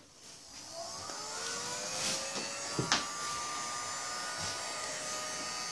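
Heating tool for fusing wax started up: a whine climbs in pitch over about a second and settles into a steady airy running sound, with a sharp click about three seconds in.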